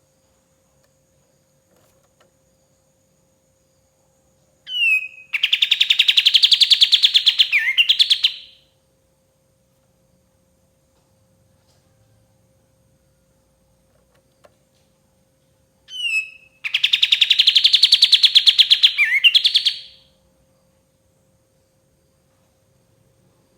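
Kapas tembak songbird singing two loud phrases about ten seconds apart. Each opens with a short swooping note and runs into a fast, rattling trill that lasts about three seconds, closing with a quick upward flourish. A faint steady hum sits underneath.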